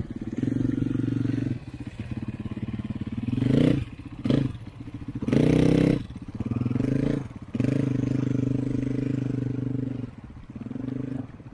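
KTM 500 EXC's single-cylinder four-stroke engine running as the bike is walked through a shallow river, with two rising throttle blips about three and a half and five and a half seconds in.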